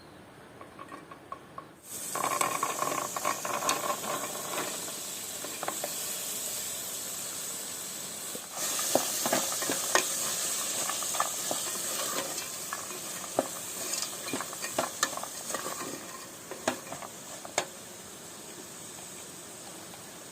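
Food sizzling in hot oil in a pan, starting suddenly about two seconds in and getting louder about halfway, with a spoon clicking against the pan while stirring.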